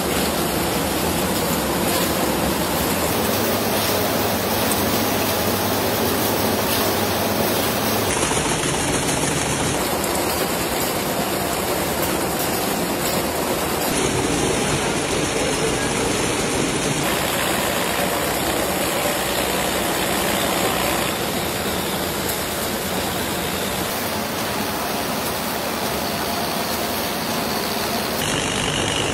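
Automatic matchbox-filling and match-making machinery running: a loud, steady mechanical din that changes abruptly several times.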